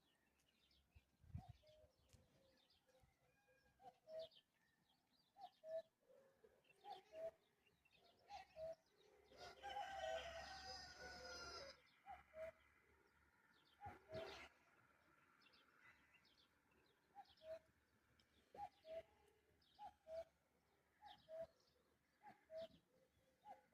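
Faint birds calling: short two-note calls repeating every second or so, with one longer call of about two seconds near the middle.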